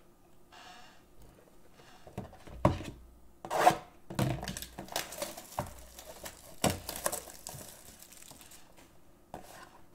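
Cardboard trading-card boxes being handled and set down on a table: several knocks and thumps, the loudest about four seconds in, with crinkling of plastic wrap between them.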